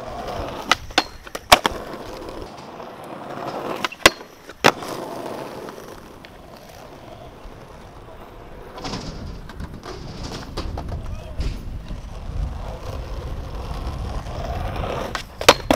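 Skateboard urethane wheels rolling on rough asphalt, with sharp wooden clacks of the board slapping the ground: a cluster in the first couple of seconds, two more about four seconds in, and a pair near the end. A longer stretch of louder low rolling rumble runs through the middle to late part.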